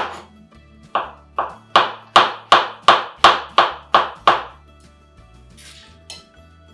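Kitchen knife slicing button mushrooms on a plastic cutting board: sharp, even chops about three a second, stopping about four and a half seconds in, over faint background music.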